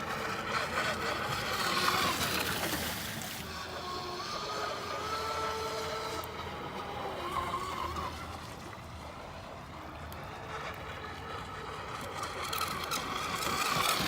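Joysway US-1 V3 RC racing catamaran's 2815 brushless electric motor running, its whine rising and falling with the throttle over a steady hiss.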